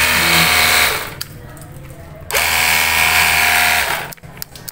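Cordless battery-powered pressure washer spraying a scooter's mudguard: its pump motor hums under the hiss of the water jet. It runs in two bursts, the first stopping about a second in and the second lasting about a second and a half.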